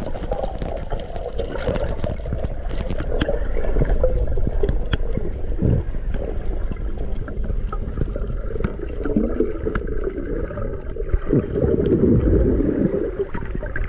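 Muffled rushing and gurgling of water heard through an underwater camera's housing, with scattered small clicks, as a hooked grouper is hauled up on the line.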